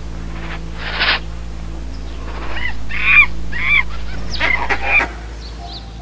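A quick run of about six short, honking animal calls in the second half, with a short noisy burst about a second in.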